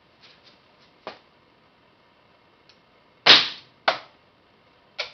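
A few faint clicks, then about three seconds in a single sharp crack as the six-stage Gauss rifle (coilgun) fires its steel slug into the target. Two more sharp clicks follow.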